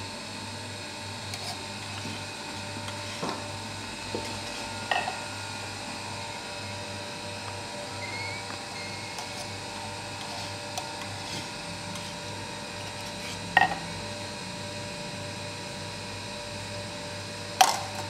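A few short, sharp clinks of a metal spoon against a ceramic cup while latte-art etching is finished. Two of the clinks are loud, about two-thirds of the way through and near the end, over a steady low background hum.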